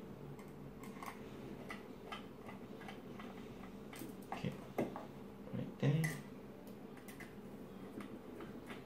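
Phillips screwdriver turning a screw in a metal mounting bracket: faint, irregular ticks and clicks of the bit working the screw head, with a few louder clicks about four to six seconds in.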